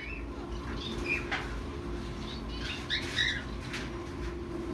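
Red lory parrot giving short, scattered chirps, with a cluster of calls about three seconds in, over a steady low hum.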